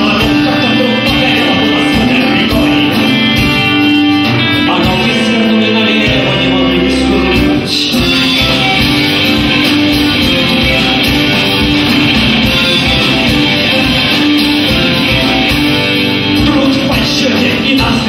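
Live rock band playing: acoustic and electric guitars, electric bass, drum kit and accordion together, loud and steady, with sustained held notes over a steady beat.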